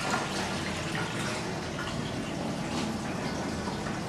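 Bicarbonate solution being poured from a plastic bucket through a mesh strainer into a plastic jerrycan: a steady run of liquid.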